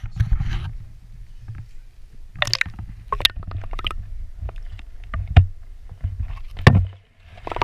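Muffled underwater sound picked up by a GoPro in its waterproof housing, held submerged in a rock pool. About a second in the sound closes in to a low steady rumble, with sharp clicks and knocks every second or so.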